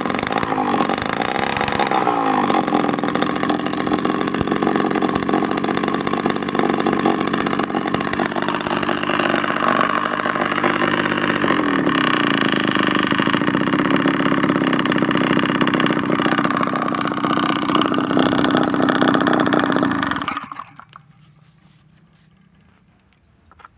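Homemade mini two-stroke engine built from a refrigerator compressor, with a rubber radiator-hose expansion-chamber exhaust, running at a high buzz with its pitch rising and falling as the throttle changes. It cuts out about 20 seconds in.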